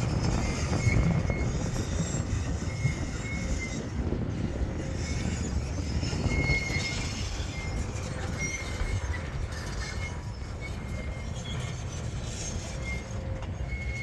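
Honeybee swarm clustered in the open, humming under a steady low rumble, with short high-pitched squeals recurring every second or two.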